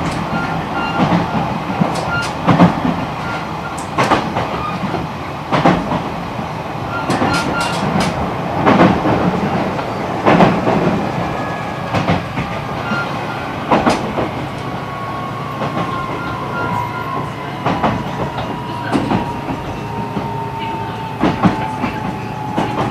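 E129-series electric train heard aboard its motor car: the wheels knock over rail joints at irregular intervals over a steady rolling rumble. From about two-thirds of the way through, the Toyo IGBT VVVF inverter and traction motor whine falls steadily in pitch as the train slows on its approach to a station.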